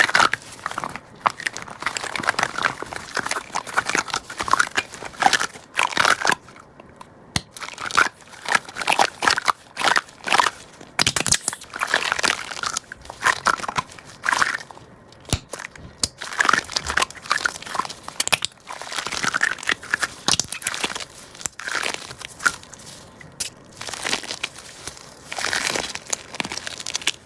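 Hands squeezing and kneading a large handmade squishy toy, giving repeated crinkly, crackling squishes in irregular clusters with short pauses between squeezes.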